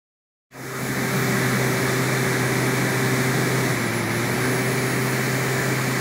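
Small electric fan in a miniature air-conditioner outdoor unit running with a steady whir and a low hum, starting abruptly about half a second in.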